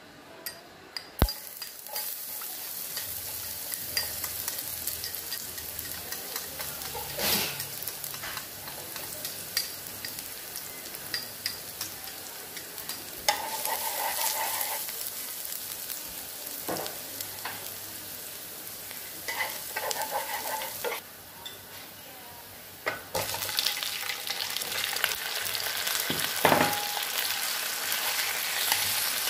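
Chicken wings sizzling in a hot pan, with a dense hiss and the occasional clink and scrape of a cooking utensil stirring them. The sizzle starts after a sharp clack just over a second in and drops back briefly a little past the two-thirds mark.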